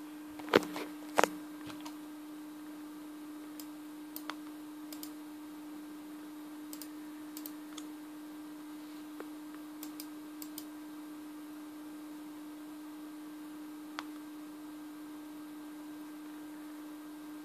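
Clicks from operating an ASUS Eee PC 900 netbook: two sharp clicks about half a second apart near the start, then scattered lighter clicks and one more click later on, over a steady low hum.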